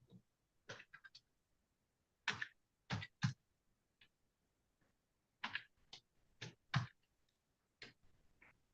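About a dozen short clicks and light taps close to the microphone, spaced unevenly, with a few louder knocks among them.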